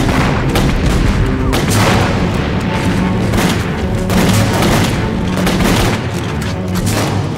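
Battle sound effects: explosions and an irregular series of rifle shots, mixed with a music score.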